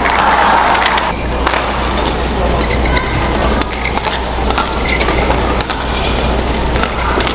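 Indoor badminton arena: sharp racket strikes on the shuttlecock and short shoe squeaks on the court over a steady crowd hubbub, with a louder swell of crowd noise in the first second.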